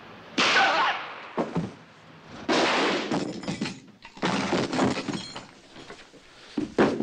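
Glass breaking: a loud shattering crash about half a second in, then several more crashes and knocks, with a sharp double impact near the end.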